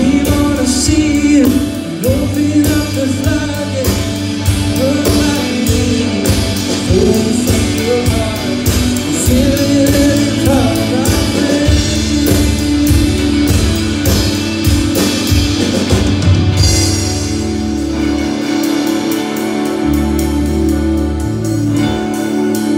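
Live rock band playing: electric bass, drum kit and electric lead guitar together, with a steady drum beat that thins out about 16 seconds in.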